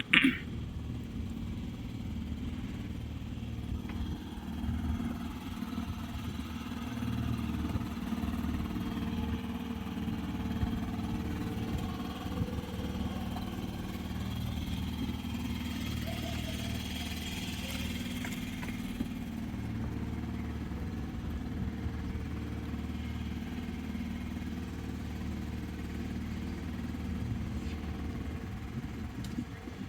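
Petrol engine of a backwater passenger boat running steadily at cruising speed, a constant low drone.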